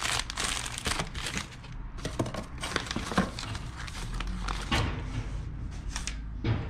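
Clear plastic packing bag crinkling and cardboard box flaps rustling as a shipping box is unpacked, in irregular rustles with light knocks.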